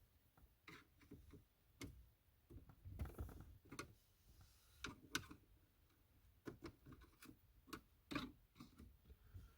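Faint, irregular clicks and taps of a pick prying at the plastic fasteners holding a car's dash pad.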